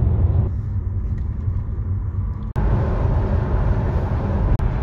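Mercedes-AMG CLS63 (5.5-litre biturbo V8) at highway speed, heard from inside the cabin: a steady low rumble of engine and road noise. About halfway through it cuts off abruptly and gives way to a brighter, hissier rumble.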